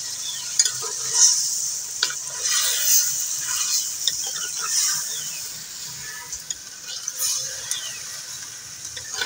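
Soaked split lentils sizzling in hot oil in a clay kadhai while a spoon stirs them, scraping against the pot in irregular strokes. The stirring is busiest in the first half and eases off later.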